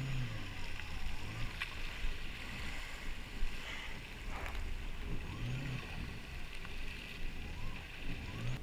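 Yamaha jet ski's engine running at low speed, with a steady rumble and the noise of water along the hull.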